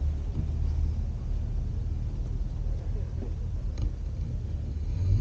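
A car engine idling with a steady low rumble.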